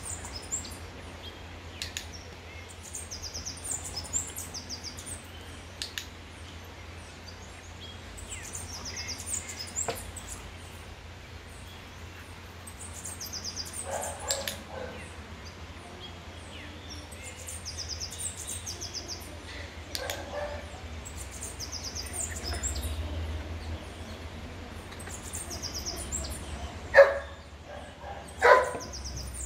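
A puppy barks twice, short and sharp, near the end, with a couple of fainter yips earlier. Behind it, a songbird repeats a short high chirping phrase every few seconds.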